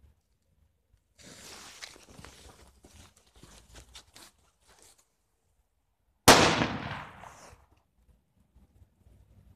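Jorge Piccolo firecracker: a crackling hiss for a few seconds, then after a short pause a single sharp bang about six seconds in that dies away over about a second.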